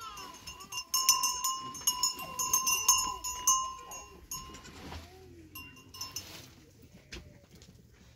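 A small metal livestock bell on a feeding goat clanking and ringing with quick repeated strikes, loudest in the first half and dying away about halfway through, with a brief return of ringing a little later.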